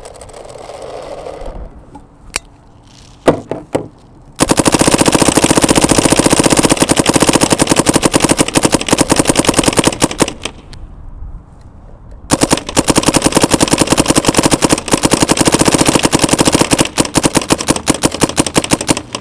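Dye M3s electronic paintball marker on compressed air firing paint in rapid, even strings of shots: a few separate clicks first, then one long burst, a pause of about two seconds, and a second long burst.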